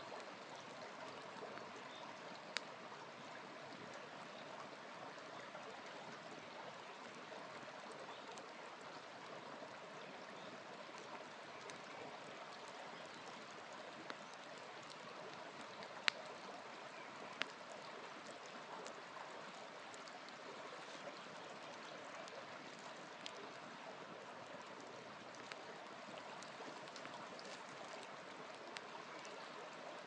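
Steady trickling of a shallow stream, with a small wood campfire giving a few sharp crackles and pops, the loudest about halfway through.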